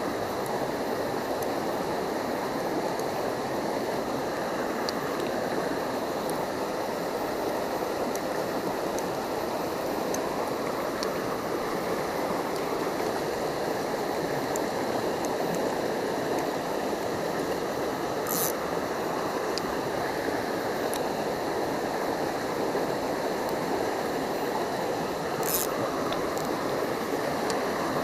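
Shallow stream rushing steadily over rocks, with two brief high ticks, one about two-thirds of the way through and one near the end.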